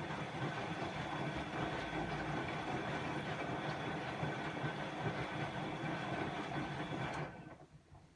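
Bosch WAE24162GB03 washing machine running, its motor turning the drum with a steady whine over a busy rattle, then stopping abruptly about seven seconds in.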